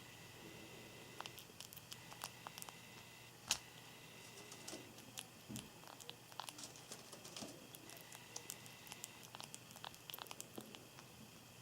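Pet Java sparrow making small sharp sounds: scattered faint clicks and one louder sneeze-like snap about three and a half seconds in, the 'achoo' that the owner wonders may be the bird sneezing.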